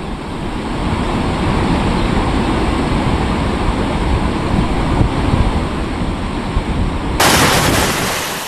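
Floodwater rushing through a dam's open spillway gates, a loud steady roar of falling and churning water. About seven seconds in it turns suddenly to a brighter, hissier rush.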